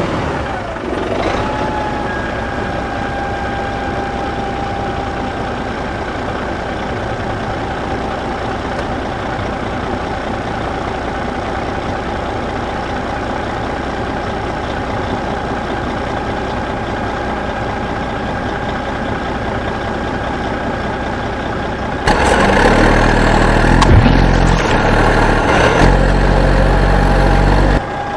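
Heavy vehicle engine running steadily, becoming much louder and deeper for about six seconds near the end before dropping back.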